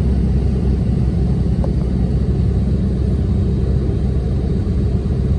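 Dodge Ram 2500's 5.9-litre 24-valve Cummins straight-six turbo diesel running steadily with the truck under way, heard from inside the cab as an even low rumble.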